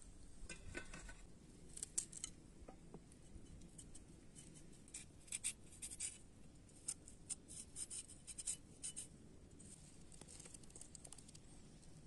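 Knife scraping the skin off raw carrots: short, dry scratching strokes in quick runs, faint.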